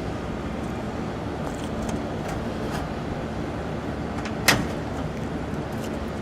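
Steady mechanical running noise, with one sharp click about four and a half seconds in.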